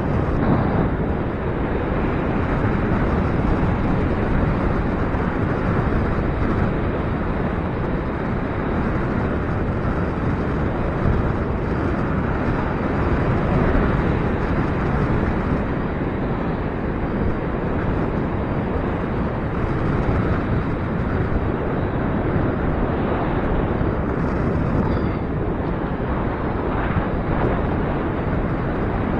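Gusty wind buffeting the microphone: a loud, steady rumbling rush that swells and eases a little.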